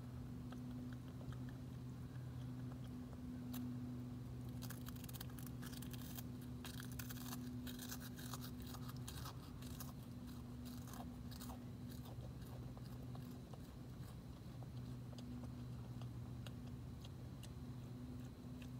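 Opossum crunching dry food: a dense run of sharp crackles from about four seconds in to about twelve seconds, with scattered single clicks before and after. A steady low hum runs underneath.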